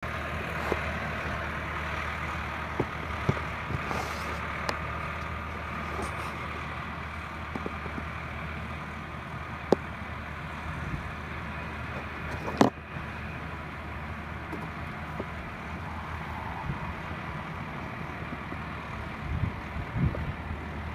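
Farm tractor engine running steadily as the tractor pulls away, a low, even drone, with a few short clicks and knocks over it.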